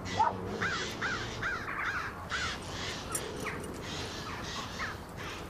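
Crows cawing: a quick run of harsh caws about a second in, then scattered calls.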